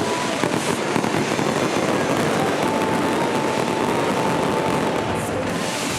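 Fireworks crackling densely and without pause, with a few sharp pops in the first second.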